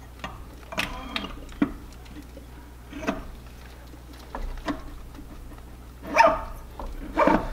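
Torque converter being worked by hand onto an automatic transmission's input shaft: scattered light metal clicks and knocks. Several short vocal sounds cut in, the loudest two near the end.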